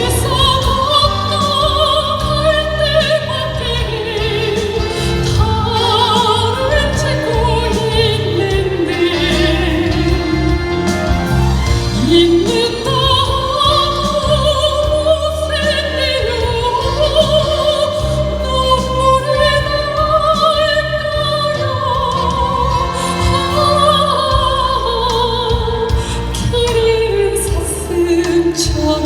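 Soprano singing in operatic style with wide vibrato, long held notes gliding between phrases, over a steady instrumental accompaniment.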